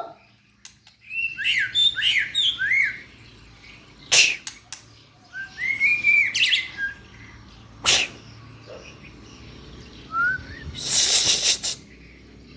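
White-rumped shama singing in separate phrases. The first is a quick run of downward-slurred whistles, and a later one has rising and held notes. Sharp clicks fall between the phrases, and a harsh noisy burst comes near the end.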